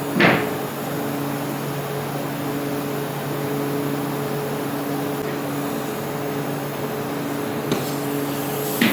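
A woodworking power tool running steadily, a constant motor hum over an even noise, with one sharp knock just after the start.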